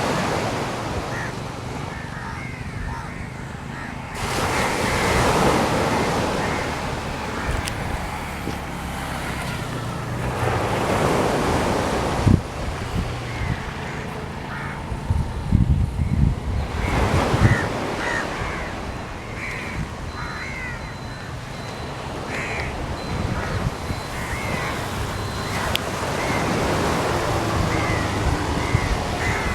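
Sea waves washing in, swelling and falling back every several seconds, with many short bird calls over them.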